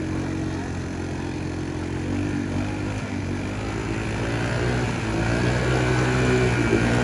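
ATV engine held at steady high revs as the machine churns through a mud hole. The engine note keeps one pitch and builds gradually louder over the last few seconds.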